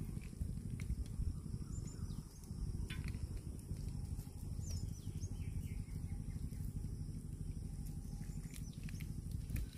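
Outdoor ambience: a steady low rumble with a few faint, short high bird chirps and occasional light ticks.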